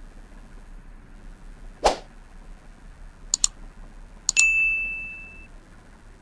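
A single knock about two seconds in, then a subscribe-button sound effect: a quick double mouse click, then a click followed by a bell ding that rings for about a second and fades.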